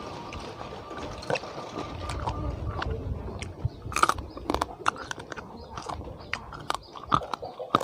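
A person eating crunchy food, chewing with a string of sharp, irregular crunches in the second half.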